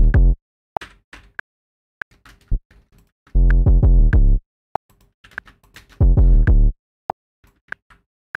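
808 bass sample played back in short bursts of about a second, a little over three seconds in and again about six seconds in: overlapping pitch-shifted copies crossfaded to imitate a portamento glide between notes. Light mouse clicks in between.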